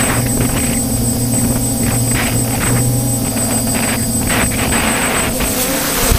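The six electric motors and propellers of a DJI Flamewheel F550 hexacopter in flight, heard from the GoPro mounted on its frame. They make a steady hum of several tones at once, with short swells of hiss about once a second.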